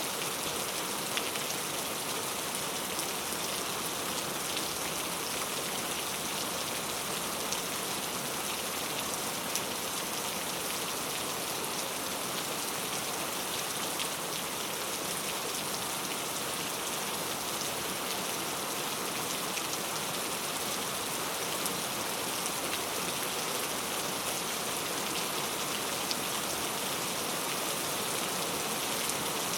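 Heavy rain falling steadily on a camping tent, with scattered individual drops ticking through the even hiss.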